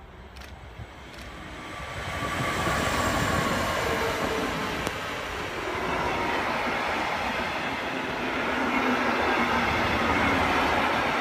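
A train approaching and running past on the Gotthard line. It swells over the first couple of seconds into a steady loud rush of wheels and running gear, with a few faint steady tones above it.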